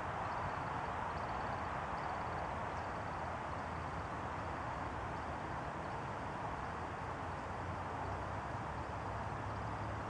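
American woodcock in its display flight, a faint high trill of short chirps repeating steadily, above a steady background hiss that is louder than the bird.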